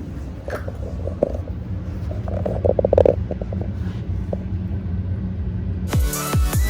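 Low steady rumbling hum with two brief spells of rapid rattling ticks. Near the end, loud dubstep-style electronic music with a wobbling, sliding bass kicks in.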